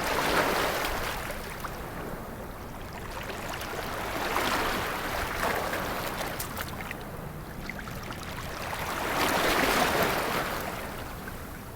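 Sea waves washing onto a beach, the surf swelling and easing in three surges about five seconds apart.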